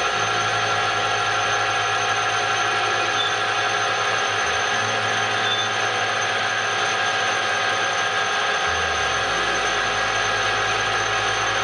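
Metal lathe running steadily while a center drill in the tailstock chuck is fed into the end of a spinning steel bar to start a pilot hole. A steady machine whine with several fixed tones over a hiss.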